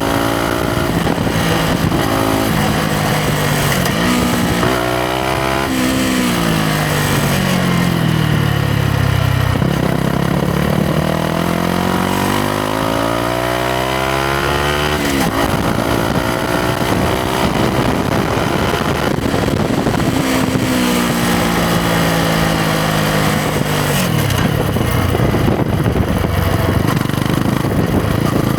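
2021 Yamaha MT-125's single-cylinder four-stroke engine and exhaust under way: the revs hold, fall away for about five seconds as the bike slows, then climb again for about five seconds as it accelerates. Later the revs hold steady once more, then drop near the end.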